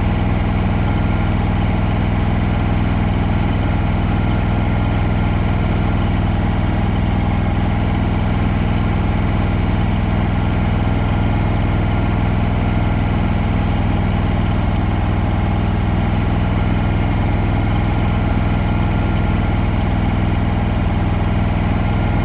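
Champion Elite welder-generator's engine running steadily, with an even hiss on top.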